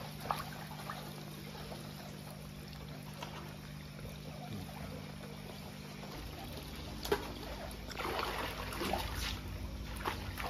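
A steady low hum with a few faint clicks, then, from about eight seconds in, a hooked freshwater pomfret (bawal) splashing at the water surface.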